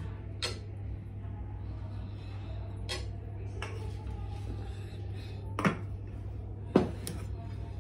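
Aluminium rice pot and serving spoon clinking and knocking against dishes as rice is served: a few light clinks, then two sharper, louder knocks near the end, over a steady low hum.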